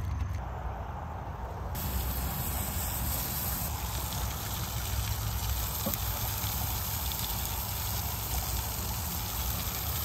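T-bone steaks sizzling on a grill, a steady hiss that grows brighter about two seconds in, over a low rumble of wind on the microphone.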